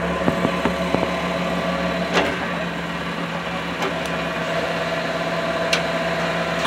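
An engine idling steadily, with a few light clicks and knocks over it, the loudest about two seconds in.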